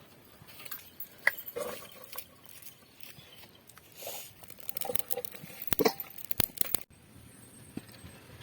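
Kitchen handling sounds as a cooking vessel is set on the stove: scattered light knocks, clicks and rustling, with a couple of sharper metallic clicks a little past the middle.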